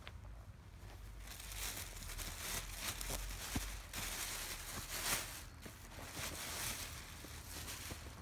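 Thin plastic carrier bag rustling and crinkling in uneven bursts as it is pulled off a cardboard shoebox.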